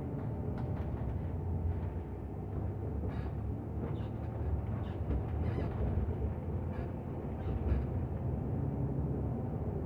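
Steady low engine and road rumble heard from inside a moving bus, with a few faint ticks.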